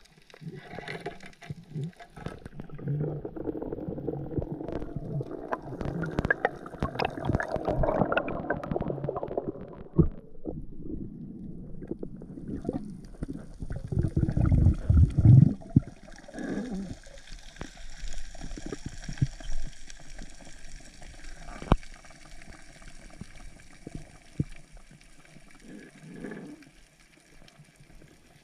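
Water sounds picked up by an underwater camera on a diving spearfisher: rushing and bubbling with many small clicks, then a loud low gurgling surge about halfway through as the diver rises toward the surface. After that comes a quieter steady hiss of water with a few sharp clicks.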